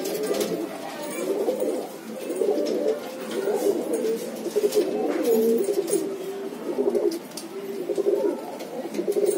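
Domestic pigeons cooing over and over, a run of low coos that follow one another through the whole stretch.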